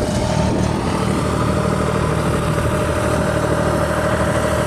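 A diesel engine of heavy farm or earth-moving machinery idling steadily, with no change in speed.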